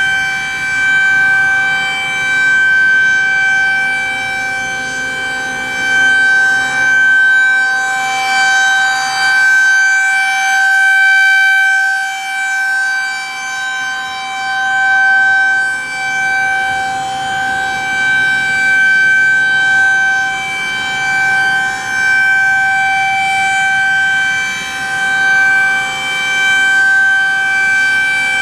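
Federal Signal 2001-SRN electromechanical outdoor warning siren sounding a steady tone at full speed, its loudness swelling and fading every couple of seconds as the rotating horn sweeps around. A Federal Signal Thunderbolt siren at the fire station sounds along with it.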